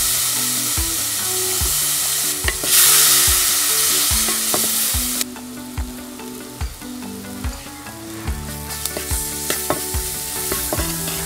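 Spices, onion and chilies frying in hot coconut oil and dark soy sauce in a clay pot, sizzling loudly, then quieter from about halfway through. Near the end a wooden spoon stirs the mix, clicking against the pot.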